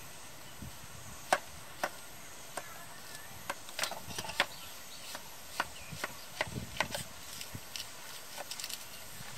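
A kitchen knife slices through a whole watermelon, giving a string of sharp, irregular crunching clicks as the blade cracks through the rind, with a few duller low knocks near the middle.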